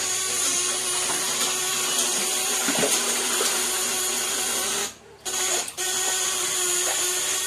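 Homemade electric fish-shocker (setrum) running at a 700-watt load with its probe in the water: a loud, steady electric buzz with a high whine, cutting out briefly twice about five seconds in.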